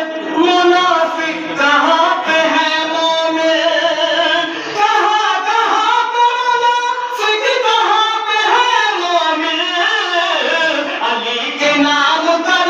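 A man's voice chanting an Urdu devotional poem (kalam) in long, melodic sung phrases, amplified through a microphone.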